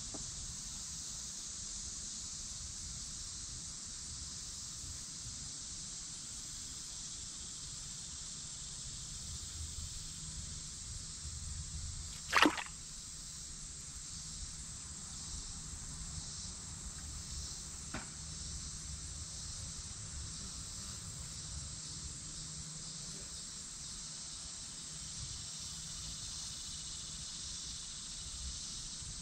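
Steady high-pitched drone of summer insects over a low rumble. About twelve seconds in comes a single sharp, loud knock or splash, and a much fainter click follows several seconds later.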